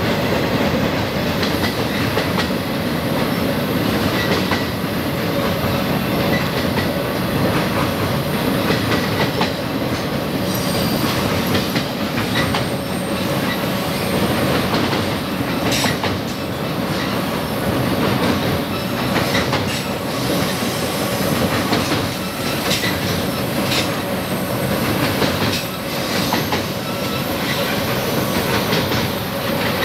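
Freight cars rolling steadily across a steel railway bridge: a continuous rumble of wheels on rail, with scattered clanks and clacks at rail joints and a thin, high wheel squeal at times.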